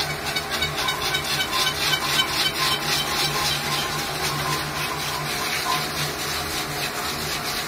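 Water splashing and spraying off the spinning disc of a phone-glass lapping and polishing machine, with a fast flutter through the first few seconds, over the steady low hum of the machine.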